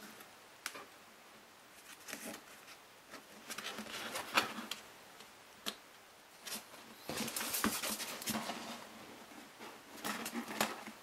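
Hands rubbing and pressing soft foam mask parts together: irregular scraping and rustling with light clicks and taps, loudest about four seconds in and again around seven to eight seconds in.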